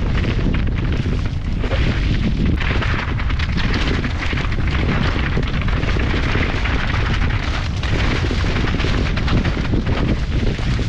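Wind rushing over the microphone and a constant rumble and rattle from a mountain bike riding fast downhill over rough ground. No engine is heard.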